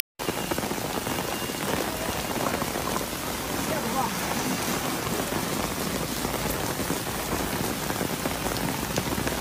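Heavy rain pouring onto pavement and standing water, a steady dense hiss of a downpour.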